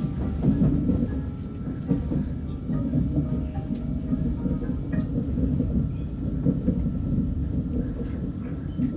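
Running noise of a KTX-Sancheon high-speed train heard inside the passenger cabin as it coasts slowly toward its terminus: a steady low rumble with a few light clicks from the wheels.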